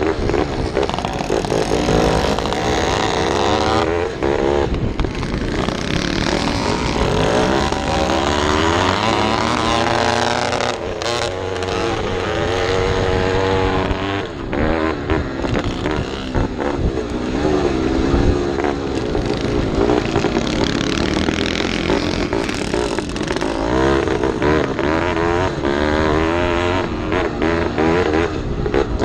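Vintage motocross bike engine heard from on board, revving up and falling off again and again as it is ridden hard around a dirt track, the pitch climbing and then dropping at each shift or throttle chop.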